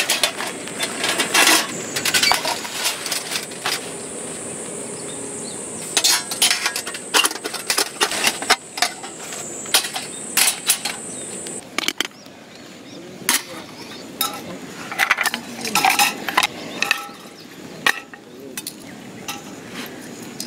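Camping gear being handled, with irregular light metallic clinks, taps and knocks in short clusters. A steady high-pitched hiss runs under the first half and cuts off abruptly about twelve seconds in.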